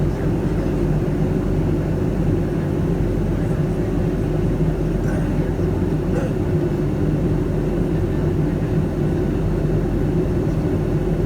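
Steady low cabin roar inside a Boeing 757-200 in descent: engine and airflow noise, even throughout.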